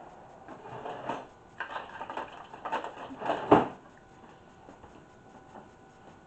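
Clatter and rustle of kitchen things being handled and rummaged through, ending in one sharp knock about three and a half seconds in.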